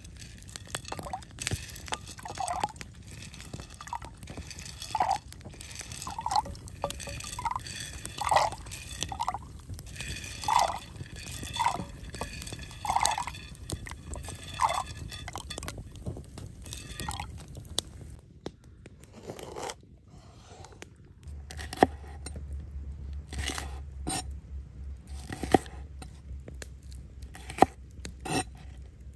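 White beans dropped into a water-filled clay pot, plopping into the water one or a few at a time, with beans clicking against the ceramic plate they slide off. In the last several seconds a large knife chops red pepper on a wooden cutting board, a few sharp knocks.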